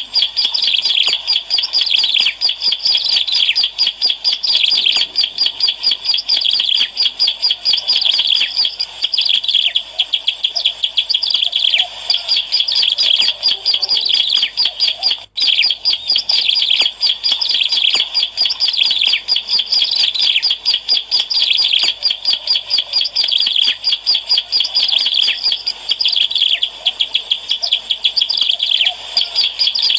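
Ciblek alang-alang, a prinia, singing a loud, fast, unbroken stream of high chirps and trills. The song breaks off for an instant about halfway through.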